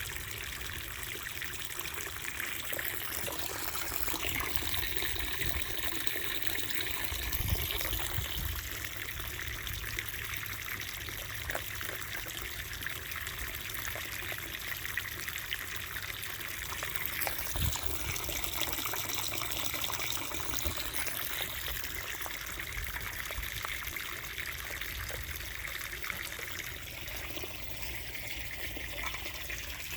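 Running water trickling and splashing steadily into a container, with a few faint clicks.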